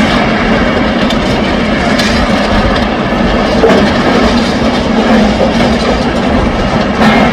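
Rubble-crushing and screening machine running loud and steady: a constant engine hum under a continuous rattle of broken rubble passing through it.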